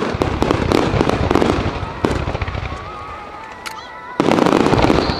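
Starmine fireworks barrage: shells bursting in quick succession with sharp bangs, crackling and a low rumble. The bangs thin out in the middle, then a dense, loud volley sets in suddenly about four seconds in.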